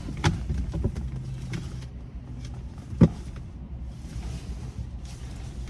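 A vehicle engine idling steadily, with scattered small clicks and rustles of rummaging through a box and one sharp knock about three seconds in.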